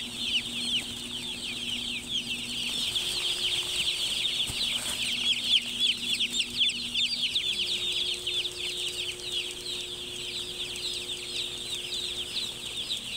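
A large flock of young chicks peeping all at once: a dense, continuous chorus of short, high, falling cheeps.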